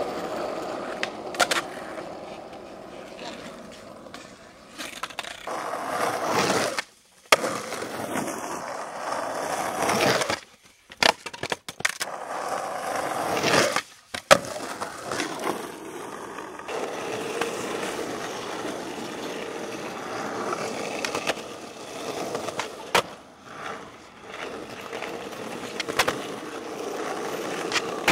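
Skateboard wheels rolling over rough asphalt and concrete, broken by several sharp clacks as boards are popped, flipped and landed. The rolling noise cuts out briefly a few times between clips.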